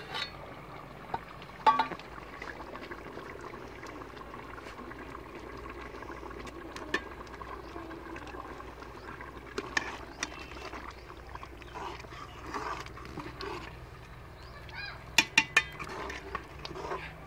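An aluminium pot lid clanks once as it is lifted off. Then potatoes bubble in water in the open pot. Near the end a metal ladle clinks and scrapes against the pot several times as they are stirred.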